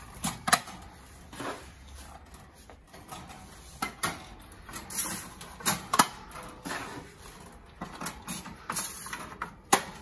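Clear plastic seed-feeder trays clicking and knocking against the wire bars of bird cages as they are fitted into place, a scatter of irregular clicks and clatters, the sharpest about half a second in and near the end.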